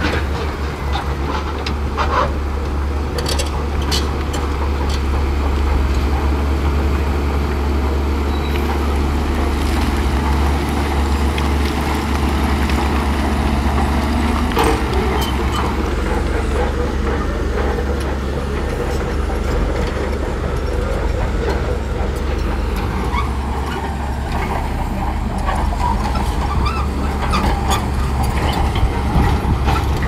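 Shantui crawler bulldozers' diesel engines running steadily under load while pushing sand, a deep continuous rumble with occasional sharp metallic clanks from the tracks and blade.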